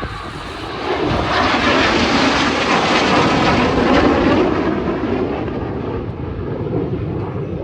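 Red Arrows' BAE Hawk T1 jets flying past. The jet noise swells to a peak a few seconds in, then fades and dulls as they pull away.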